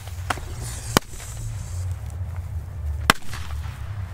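Small Keller 'China-Böller A' firecrackers going off in short, sharp bangs, the two strongest about one and three seconds in, with fainter cracks between. They are small crackers with a modest bang, called 'süß' (cute).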